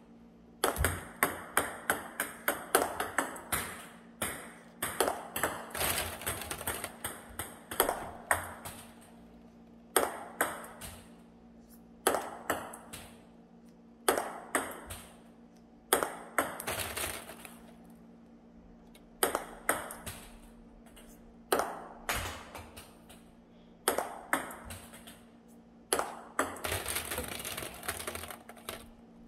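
Table tennis ball clicking on the table top and the paddle during backhand push practice, in short runs of quick bounces that fade out, a run every second or two. A faint steady hum underneath.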